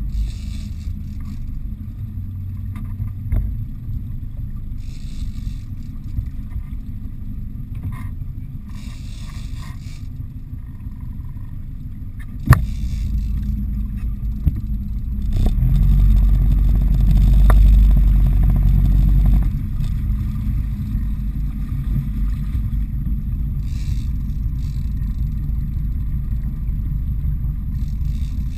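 Fishing boat's engine running steadily with a low rumble, louder for about four seconds past the middle, with one sharp knock just before.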